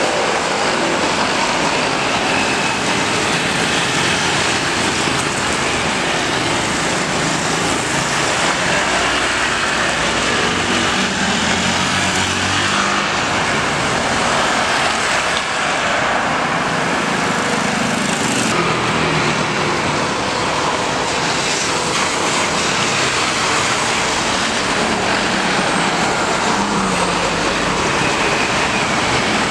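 Steady jet engine noise of an Airbus A320neo with CFM LEAP-1A engines landing and rolling out along the runway. About two-thirds of the way in there is an abrupt change to the engine noise of a Boeing 777-300ER with GE90 engines on short final.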